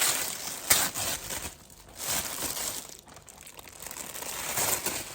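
Packaging crinkling and rustling as it is handled and unwrapped, with a sharp crackle about a second in.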